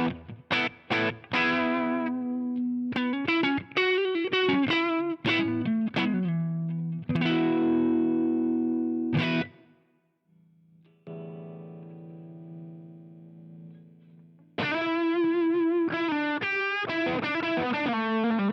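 Electric guitar played through a Joyo Deluxe Crunch distortion pedal, a clone of the MI Crunch Box, giving a crunchy, Marshall-like drive. Fast picked riffs and held chords stop abruptly about halfway through, followed by a quieter ringing passage. Loud playing then resumes, with wavering vibrato notes near the end.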